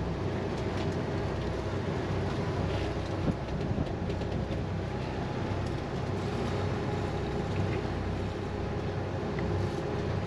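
The Leopard 45 catamaran's twin diesel engines running steadily at low revs, a low steady hum under an even hiss of wind and water. A couple of light knocks come about three to four seconds in.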